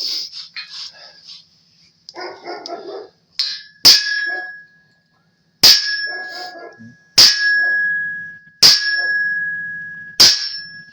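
Hammer striking a steel center punch into angle iron: about six blows roughly a second and a half apart, the first one light. Each blow leaves a ringing metallic ping that dies away.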